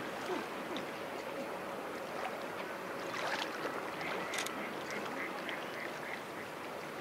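Steady wash of sea water at a harbour pier, with a bird giving a quick run of short repeated calls about four seconds in.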